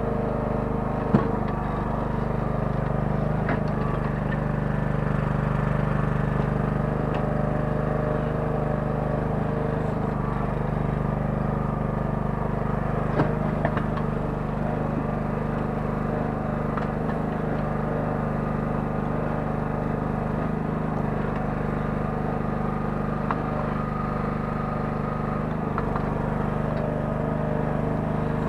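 Kellfri towable mini excavator's 9 hp engine running steadily. A sharp knock comes about a second in and a couple of lighter clanks about halfway through.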